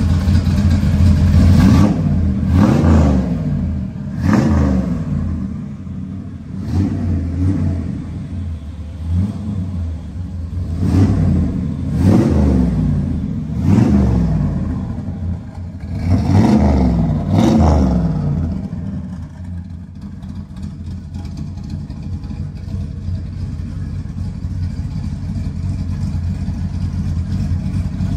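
1957 Chevrolet panel truck's 383 V8 with side exhaust pipes, revved in a string of about ten quick blips, each rising and falling back. After the last blip, a little past halfway, it settles to a steady idle.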